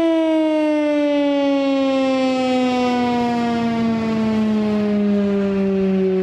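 STL-10 outdoor warning siren winding down, its single loud tone falling slowly and evenly in pitch.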